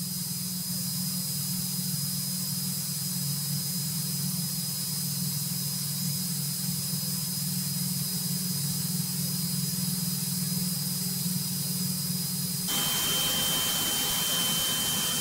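Single-engine light aircraft in flight, heard from the cabin: a steady piston-engine and propeller drone under a rush of air. About thirteen seconds in, the sound turns brighter and more even.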